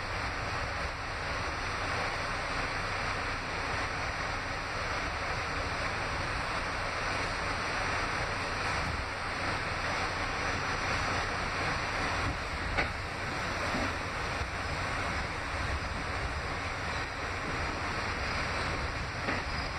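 Steady running noise heard inside an R68A subway car in motion: the rush and rumble of the moving train, with a single sharp click about thirteen seconds in.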